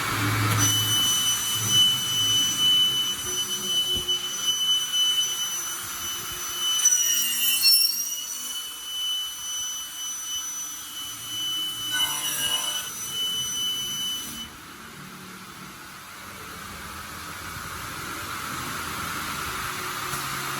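5-axis CNC end-mill machine running a freshly loaded program: a steady high whine that dips and comes back up in pitch about eight seconds in, then stops about fourteen seconds in. It is followed by a hiss that slowly grows louder.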